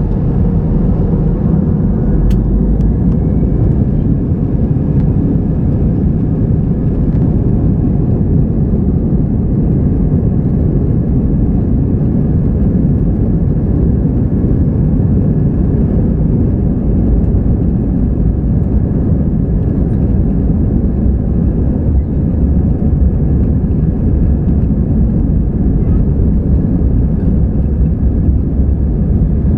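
Airbus A320 cabin during takeoff: the CFM56-5B jet engines at takeoff thrust give a loud, steady, deep rumble with a faint high whine running through it.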